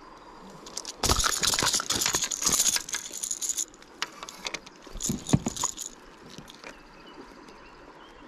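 Hybrid striped bass thrashing in a landing net on concrete while being unhooked, its Rattletrap lure and treble hooks clattering and rattling. It comes in two bursts, a long one about a second in and a shorter one about five seconds in, each with a few dull thumps of the fish slapping down.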